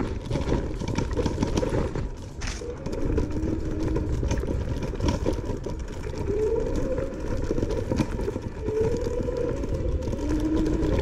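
Langfeite L8S electric scooter ridden over rough ground: a steady rumble with constant small rattles and knocks from the ride, and a faint motor whine that rises and dips in pitch several times.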